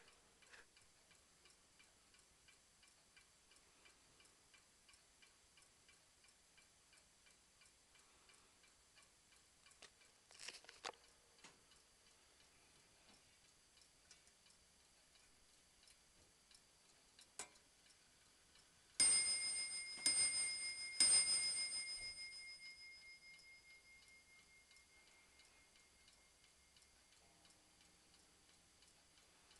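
19th-century French eight-day mantel clock ticking steadily, with a few clicks from the movement about a third of the way in and again later. Its countwheel strike then sounds three blows on the bell, about a second apart, and the last one rings on and dies away over several seconds.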